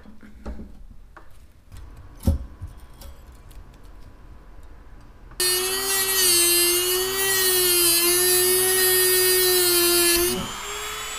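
Handheld high-speed rotary tool switched on about halfway through and running with a steady high whine for about five seconds, its pitch wavering slightly as it cuts off the tail of a stainless steel cable tie on the exhaust wrap. It switches off near the end.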